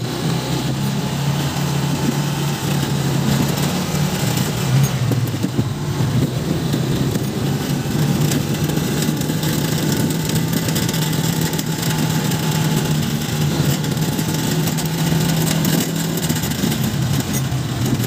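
Street motorcycle's engine running at a steady pitch, with a constant hiss of wind and road noise.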